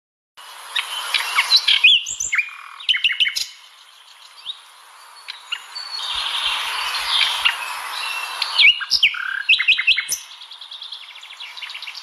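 Nightingale singing a varied song of sharp whistles, quick clicking notes and pitch sweeps, with a fast rattling trill near the end.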